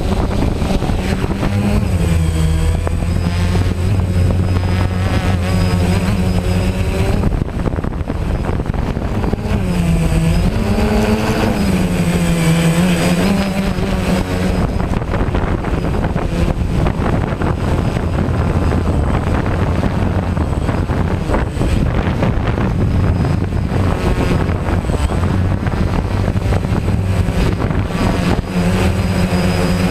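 DJI Phantom quadcopter's electric motors and propellers running as it lifts off and climbs, heard close up through the camera mounted on it: a loud steady buzzing hum over a rush of air, its pitch shifting up and down, most around 10 to 13 seconds in.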